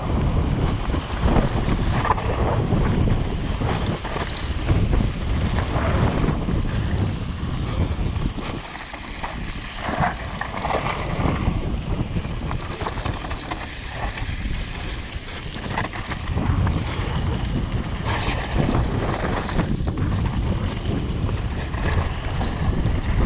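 Wind buffeting the microphone of a downhill mountain bike's rider as it descends a rough trail, with rattles and knocks from the bike over the ground throughout; it eases for a moment about eight seconds in, then picks up again.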